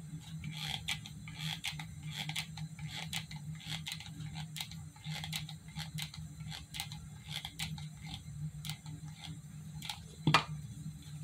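Irregular small clicks of a hot glue gun's trigger being squeezed as glue goes on, with one sharper click near the end, over a steady low hum.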